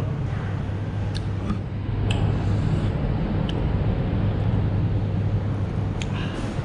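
Steady low background hum of a large indoor space, with a few faint clicks scattered through it.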